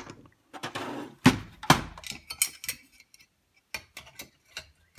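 Knocks and clinks as the opened Compaq SLT laptop chassis and its removed metal parts are handled and set down on a cutting mat. The clatter is dense over the first three seconds, with one loud knock about a second in, then a few light clicks.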